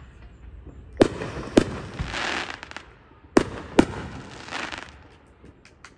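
Aerial fireworks bursting overhead: two pairs of sharp bangs, each followed by a couple of seconds of crackling.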